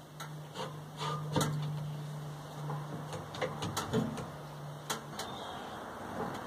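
Scattered knocks and clicks from handling metal parts and tools at a workbench, over a steady low hum that stops about five seconds in.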